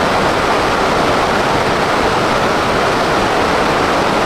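Steady, loud rush of water with no change in level.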